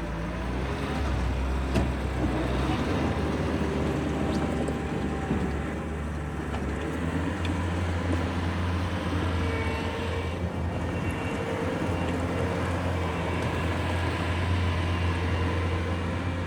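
Bobcat T595 tracked skid steer's diesel engine running under work, its speed changing a few times as the machine is operated, with a few sharp knocks early on.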